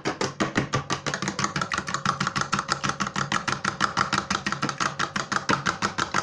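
A fork beating raw eggs in a shallow white dish: fast, even clicking strokes, about eight a second, of the fork against the dish as the eggs are whisked.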